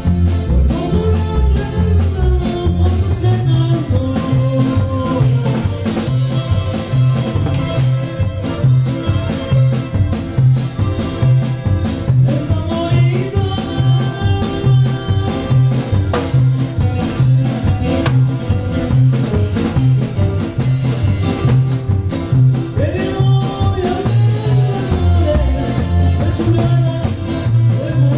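Loud norteño dance music: a steady bass line alternating between two notes about twice a second, with drums and a melody line over it.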